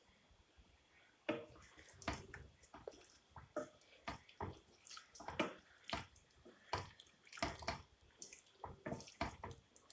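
Fried cumin-and-shallot tempering in coconut oil being mixed into pidi, rice dumplings in coconut milk: a spoon stirring in the pot with irregular wet slops and clinks, starting about a second in.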